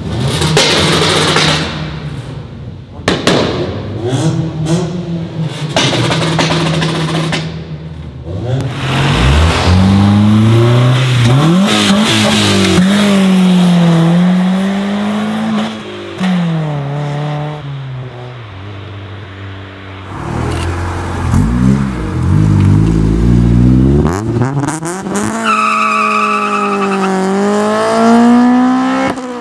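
Honda Civics' four-cylinder engines revving and accelerating hard through their exhausts in a run of short clips, the pitch climbing and falling repeatedly. There are several abrupt cuts, and a long rising pull near the end.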